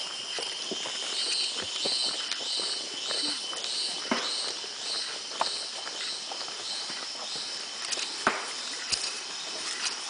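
Footsteps on a jungle trail, with irregular scuffs and knocks of feet on the ground, over a steady high insect drone. A repeated high chirp sounds about twice a second from about a second in until past the middle.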